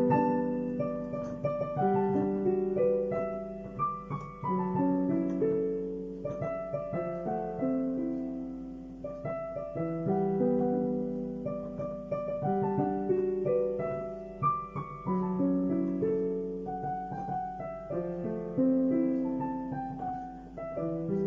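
Background music: a gentle solo piano melody, notes ringing on over a repeating pattern.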